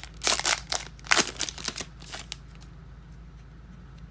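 Crinkling and rustling of a foil trading-card pack being torn open and handled, a quick string of short rustles that stops after about two and a half seconds, leaving a faint low hum.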